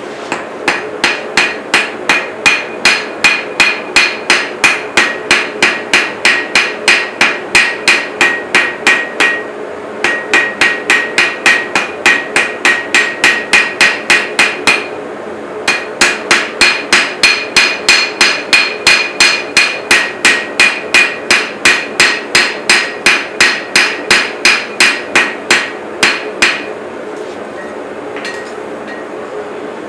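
Hand hammer striking steel on an anvil in steady, rapid blows, about three a second, in three runs with short pauses between. Each blow rings, over a steady hum.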